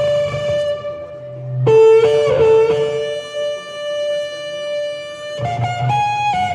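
Shofar blasts: a long held note that ends about a second and a half in, then a lower note that wavers as it starts and slowly fades, and a short higher blast near the end.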